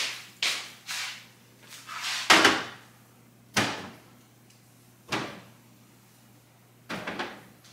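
Irregular knocks and clunks of bottles and containers being set on the shelves and door bins of an open refrigerator, about seven in all, the loudest a little over two seconds in.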